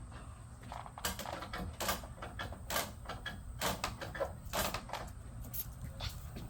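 An irregular run of sharp clicks and knocks, about a dozen, from about a second in until near the end, over a steady low rumble.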